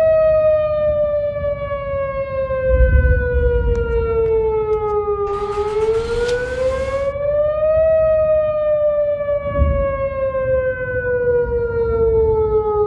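Outdoor tornado warning siren wailing, its pitch slowly falling, rising again about five to eight seconds in, then falling once more. A low rumble runs underneath, with a brief hiss near the middle.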